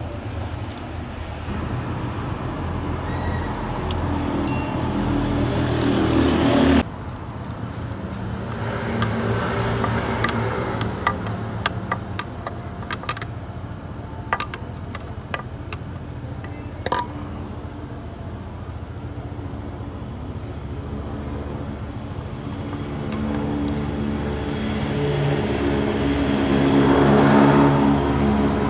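Motor vehicle engine running with road noise, cut off abruptly about seven seconds in, with scattered clicks in the middle and an engine growing louder near the end.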